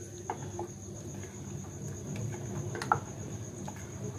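Red silicone spatula stirring and scraping thickening milk kheer in a steel pot on the gas, with a few light knocks against the pot, the loudest near three seconds in. A steady high-pitched thin tone runs underneath.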